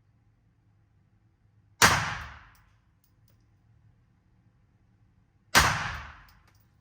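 Two gunshots about four seconds apart, each a sharp crack that rings off over about a second.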